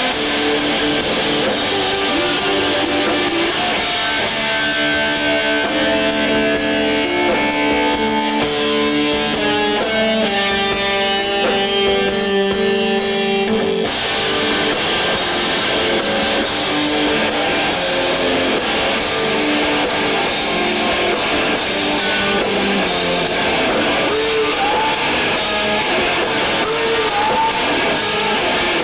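Live emo band playing loud, distorted electric guitars over held, ringing chords. About 14 s in the sound breaks off for an instant and the full band comes straight back in; near the end, bending notes ride over the chords.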